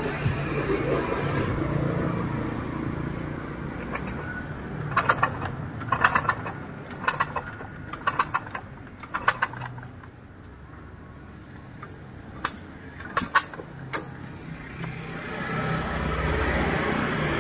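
Small motorcycle's kick starter kicked over and over, about once a second, each kick a short metallic clatter as the engine turns over with its spark plug out. This is the loose-compression trick of drawing gasoline through a hose in the plug hole into the cylinder. A few single clicks follow.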